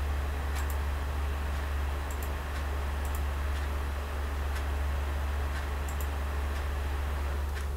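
Computer mouse clicking every second or so, some clicks in quick pairs, over a steady low electrical hum and hiss.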